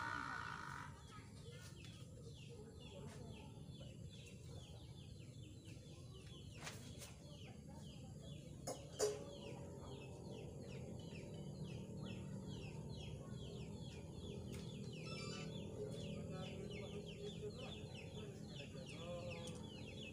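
Chickens calling outside: a steady run of short, falling peeps, several a second. A few sharp metal knocks from drum stand hardware being handled come in the middle, the last with a brief ring.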